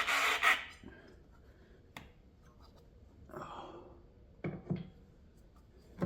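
Hands working parts of an outboard lower unit's water pump assembly into place: a loud scrape at the start, a sharp click about two seconds in, a short rub, two quick knocks, and another scrape at the end.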